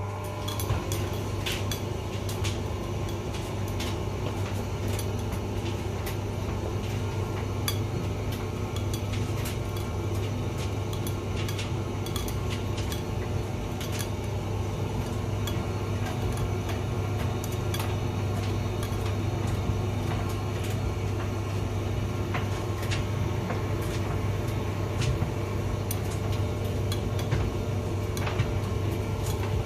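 Hotpoint vented tumble dryer running: a steady motor and drum hum with frequent irregular light clicks and clinks from the tumbling load.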